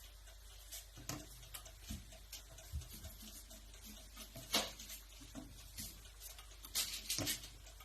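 Scattered light clicks and taps of a utensil against a doughnut maker and batter bowl as batter is spooned into the moulds, with a sharper click about halfway through and a quick cluster of taps near the end.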